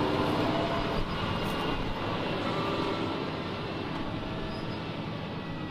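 Fendt 936 Vario tractor's six-cylinder diesel engine running steadily under load as it pulls a ridger through the soil, growing fainter as the tractor moves away.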